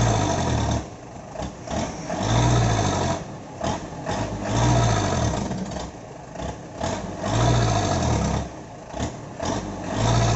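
Fully loaded Toyota Dyna 115 PS dump truck's diesel engine revving in repeated surges about every two and a half seconds, each rising and falling in pitch, as the truck strains to drive out of deep sand where it is stuck.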